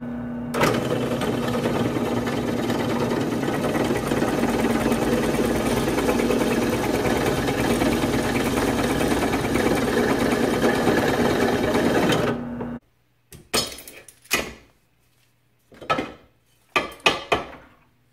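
Drill press running, its twist bit cutting through rusty rectangular steel tubing, a steady grinding with a constant motor hum. It stops abruptly about thirteen seconds in, followed by a few short clanks of the steel tube being handled on the press table.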